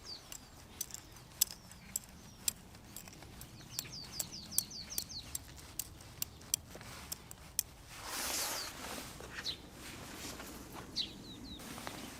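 Wood fire crackling with sharp, irregular pops, while a bird calls in a quick run of short descending chirps about four seconds in. A brief rushing swell comes about eight seconds in.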